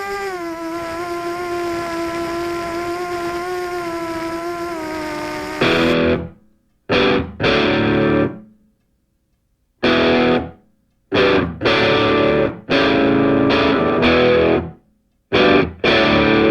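A steady pitched whine with a slight wobble in pitch, then from about six seconds in, distorted electric guitar chords played in short hard stabs with silent gaps between them.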